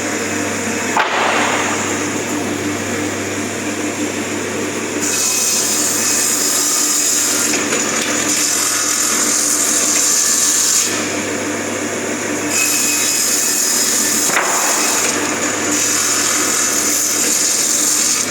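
Double-end wood cutting saw running with a steady motor hum, broken by three long stretches of louder high-pitched hiss, each a few seconds, as the blades cut wood. A sharp knock comes about a second in and another about two thirds of the way through.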